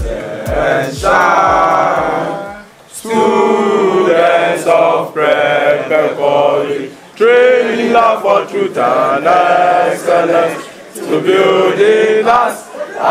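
A group of voices singing together, in phrases broken by short pauses. A few fading bass beats of backing music sound at the very start.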